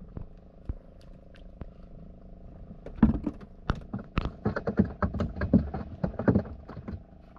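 A boat engine idling with a steady hum. From about three seconds in, a run of loud, irregular knocks and rustles lasts for some three seconds.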